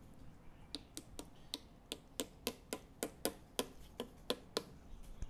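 A run of about sixteen sharp wooden taps, about four a second, as a hand taps and presses a wooden bow-tie key into its mortise in a log stump. The taps start about a second in and stop shortly before the end.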